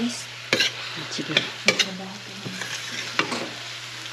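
A metal utensil stirring baked ziti in tomato sauce around a stainless steel frying pan, knocking and scraping against the pan about five times, with the food sizzling in the hot pan.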